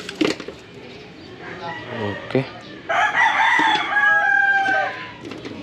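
A rooster crows once, starting about three seconds in and lasting about two seconds; it is the loudest sound here. Before it, plastic packaging rustles and small accessories click as they are handled.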